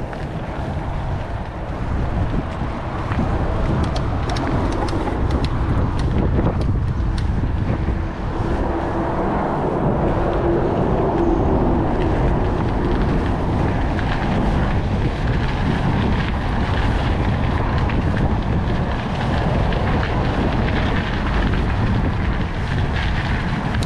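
Wind rushing over the microphone of a bike-mounted action camera while riding, over the steady low rumble of a Trek Stache 29+ hardtail's tyres rolling on pavement, growing a little louder a few seconds in as speed picks up.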